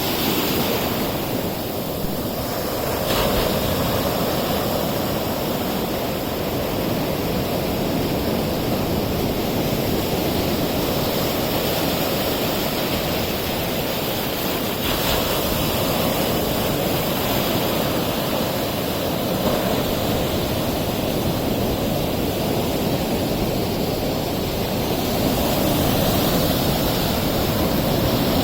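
Sea surf at high tide breaking and washing over coral reefs: a continuous rush of waves that swells and eases slowly.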